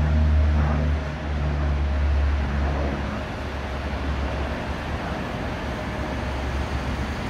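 Twin Garrett TPE331 turboprops of a Gulfstream 690D climbing away after takeoff: a low drone that fades after about three seconds as the aircraft recedes, leaving a steady rushing noise.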